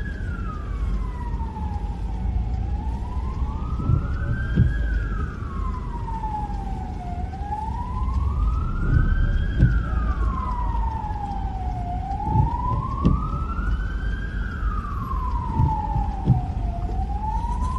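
Emergency vehicle siren on a slow wail, rising and falling about once every five seconds, over a steady low rumble with a few dull knocks.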